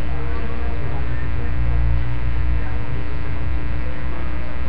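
Loud, steady electrical hum: a stack of evenly spaced unchanging tones, heaviest in the low end.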